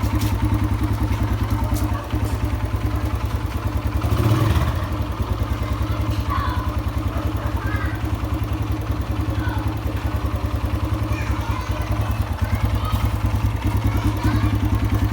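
Kawasaki KLX140R F dirt bike's small single-cylinder four-stroke engine idling steadily, briefly louder about four seconds in.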